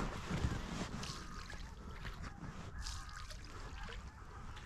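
Geese honking and ducks calling faintly, many short scattered calls overlapping, over a low rumble.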